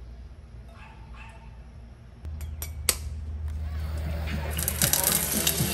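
A few sharp clicks of kitchenware a little under three seconds in, then hot oil in a small nonstick saucepan on a gas burner starting to sizzle and crackle, growing louder toward the end as an egg begins to fry.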